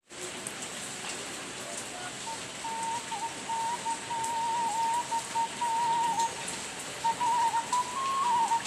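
Steady rain with scattered sharp drips. From about two seconds in, a slow melody of long, slightly wavering notes in a whistle-like tone plays over it.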